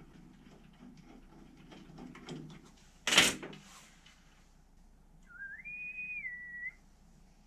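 Light handling clicks, then a sharp clunk about three seconds in. Later, a person whistles a short phrase that rises, holds and then drops a step.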